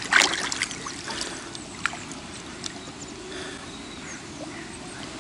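Small splashes and lapping of lake water at the shoreline: one sharper splash just after the start, a few fainter ones around two seconds in.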